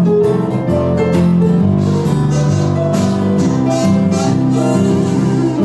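Acoustic music with a guitar playing, notes plucked and held over a steady accompaniment.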